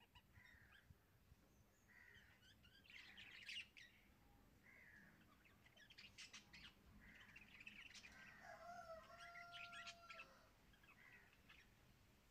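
Faint birds chirping and calling, with a few light knife taps on a wooden chopping board.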